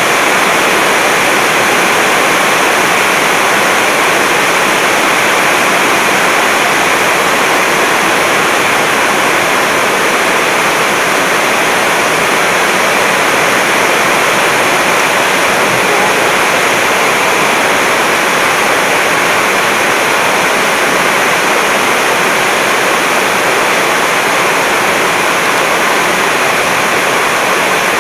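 A loud, steady rushing hiss that never changes, with no knocks or clicks in it.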